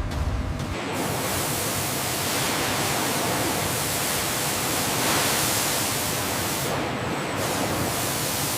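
Steady, loud rushing hiss, like air or gas under pressure, starting about a second in and cutting off sharply at the end.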